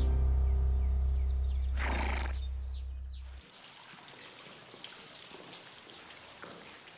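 Background music with a heavy bass fades out over the first three and a half seconds. About two seconds in a horse snorts once, and birds chirp through the quiet courtyard ambience that follows.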